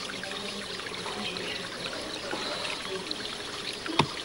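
Water trickling and running steadily in the outdoor ambience. A single sharp click comes near the end.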